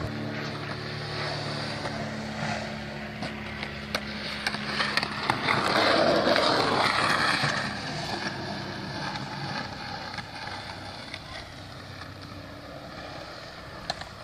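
Skateboard wheels rolling on concrete, a steady rumble that swells loudest about halfway through as a board rolls close, with scattered sharp clicks.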